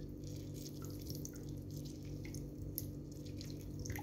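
Liquid dripping into a pressure-cooker pot of spiced rice water: scattered small drips and plops over a steady low hum, with a sharper plop near the end.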